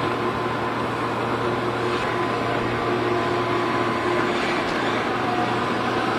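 Small engine of a wooden river boat running steadily under way: an even, unbroken drone.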